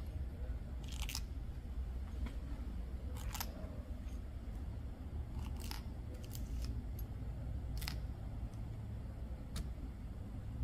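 Scattered light metal clicks, about seven of them at irregular intervals, as bolts are set and threaded by hand into a cam phaser's cover plate, over a steady low hum.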